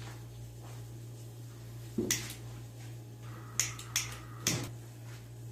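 Handheld gas lighter clicked several times to relight the stove burner after its flame went out: one sharp click about two seconds in, then three more close together near the middle, over a low steady hum.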